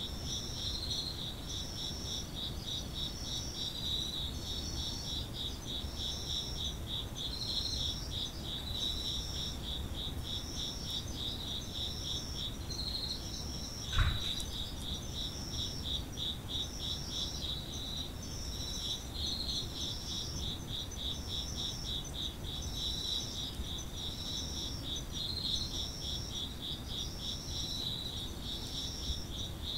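Chorus of Japanese autumn insects: one song of rapid, even pulses keeps going without a break, while a second, higher song repeats in short phrases about once a second. A single sharp knock sounds once, about halfway through.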